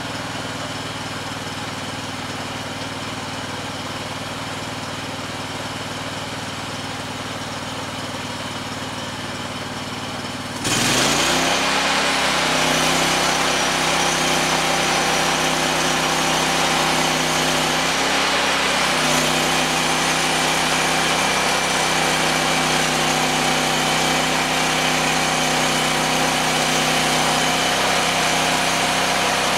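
Small petrol engine of a portable bandsaw mill running steadily at idle, then revved up about a third of the way in to a higher, steady speed. Its pitch sags briefly a little past halfway, then recovers.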